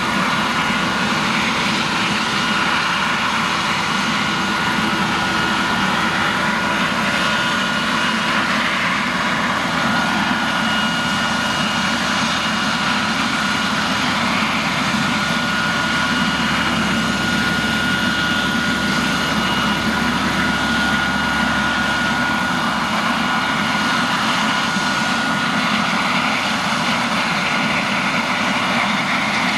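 Eurocopter EC155 helicopter's twin Turbomeca Arriel turboshaft engines and rotors running steadily on the ground at idle: a constant high turbine whine over the rush of the turning rotor.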